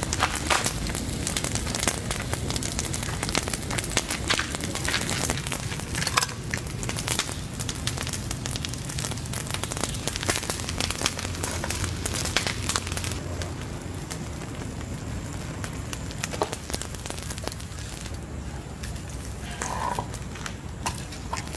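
Wood campfire burning, crackling with many quick pops and snaps. The crackling thins out about two-thirds of the way through, and near the end a metal scoop scrapes through the embers and ash.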